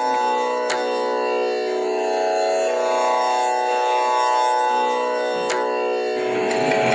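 Carnatic music accompaniment: a steady drone chord held without a break, with two faint clicks, about a second in and again about five seconds in.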